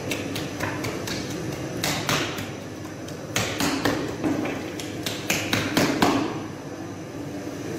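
A baker's hands slapping and patting sangak dough spread on a wooden peel: sharp pats in irregular bursts, then a stretch of steady background hum near the end.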